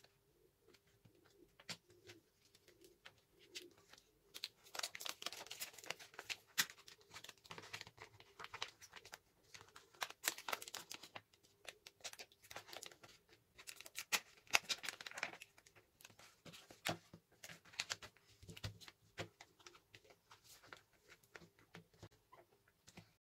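Colour paper and cello tape being folded, pressed and smoothed by hand: soft, irregular crinkling and rustling with small clicks of tape.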